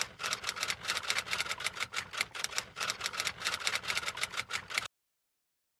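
Jawa 42 motorcycle's starter relay chattering in fast, even clicks, about eight a second, as the starter is pressed with a battery too weak to turn the engine over. The clicking cuts off suddenly near the end.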